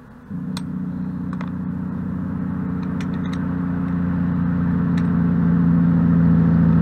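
A motor droning steadily, growing gradually louder with its pitch sagging slightly, then cutting off suddenly near the end; a few faint clicks over it.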